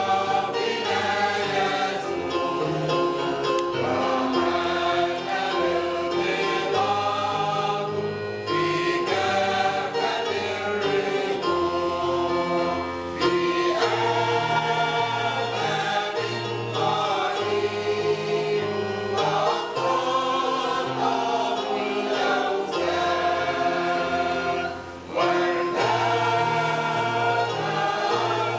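Mixed choir of men and women singing a church hymn together, the low voices holding steady notes beneath the melody.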